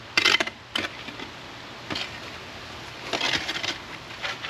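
Short crunching, scraping noises of ash, dirt and debris in the fire pit being dug out and handled. There are several separate bursts, with the longest about three seconds in.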